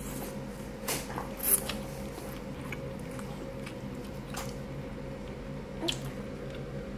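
A person slurping flat pho rice noodles into the mouth, with two sharp slurps about one and one and a half seconds in. Chewing follows, with a few soft wet mouth clicks.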